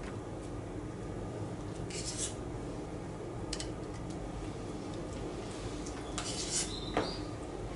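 Butter knife spreading mashed avocado on slices of bread, a few soft scrapes, then a metal utensil clinking against a stainless steel bowl about six to seven seconds in.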